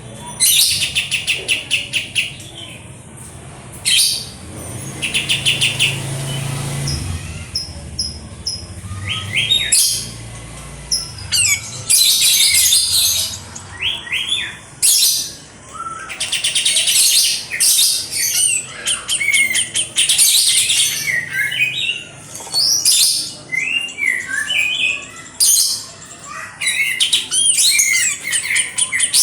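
A kapas tembak bulbul singing: bursts of fast chattering trills mixed with short, sharp rising and falling chirps, repeated over and over with brief pauses between phrases.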